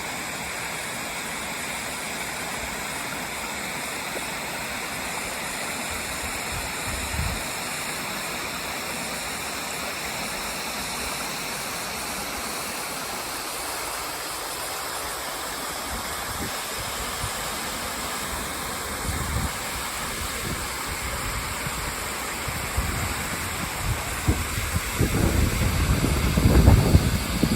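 Steady rushing of a waterfall, Delphi Falls' lower 62-foot cascade partly sheathed in ice. Low buffeting noise on the microphone builds over the last several seconds and becomes the loudest sound.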